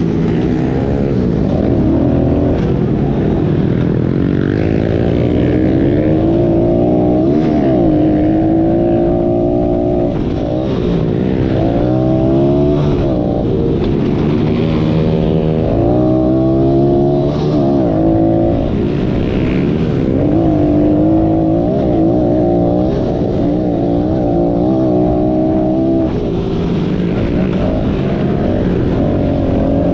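Small four-stroke pit bike engine at racing throttle, heard from on board: its pitch climbs and drops again and again as the rider accelerates and shifts, backs off and gets back on the gas.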